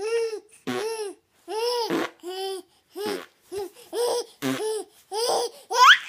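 Baby laughing in a string of short, high-pitched laughs, a little under two a second, ending in a rising squeal near the end.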